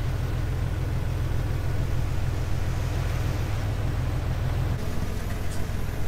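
Vehicle engine idling steadily, a low even hum.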